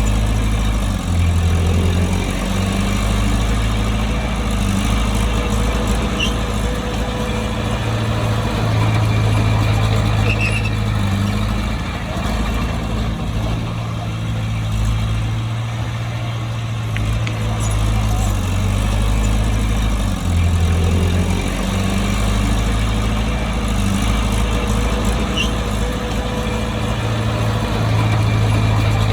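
Bulldozer's diesel engine running steadily, its pitch stepping down and back up a few times as the engine speed changes while it works.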